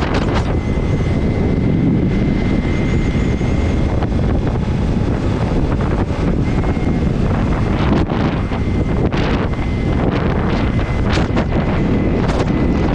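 Heavy wind rush on the microphone of a camera on a motorcycle riding a wet road, over the bike's low rumble and tyre noise, with a faint steady high whine. Scrapes and knocks against the camera come through, most of them in the last few seconds, as a gloved hand wipes the rain off the lens.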